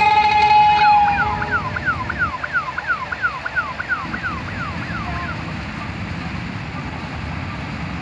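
Distant combine harvester running as a steady low rumble. Over it, a loud sustained high tone lasts about a second and a half at the start, followed by a quick string of falling notes, about three a second, that stops about five seconds in.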